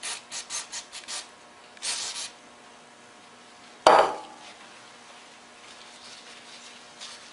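Aerosol carburetor cleaner sprayed through a straw in about six quick short bursts, then one longer burst. About four seconds in, a loud metallic clank with a brief ring as a part is set down in a steel parts tray, followed by faint rubbing.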